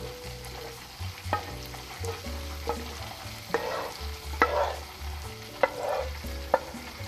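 Thick, caramelized mango-habanero sauce being poured out of a metal pan into a glass baking dish: wet plops and glugs as the sauce slides out, with about six sharp clicks of the pan or utensil against the dish.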